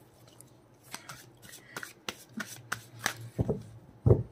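Tarot cards being shuffled and handled: scattered crisp card clicks and rubs, then a dull thump near the end, the loudest sound.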